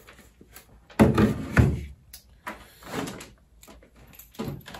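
Knocks and thumps of a boxed circuit trainer being set down on a wooden workbench and handled. The loudest thump comes about a second in, with smaller knocks after it.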